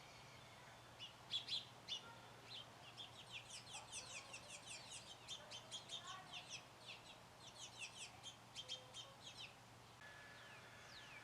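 A bird calling: a long run of short, sharp, high chirps, several a second, that starts about a second in and stops near the end. After it come a couple of brief falling whistles.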